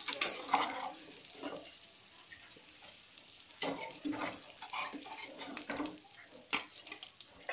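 Stuffed capsicum slices sizzling in ghee in a kadhai, with a steady hiss. A steel spatula knocks and scrapes against the pan a few times as the pieces are lifted out.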